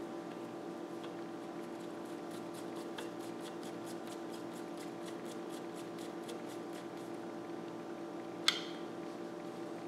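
Small screws being fastened into the top ring of a Turin DF83 espresso grinder by hand: a run of faint quick ticks, about four a second, then one sharp click near the end, over a steady low hum.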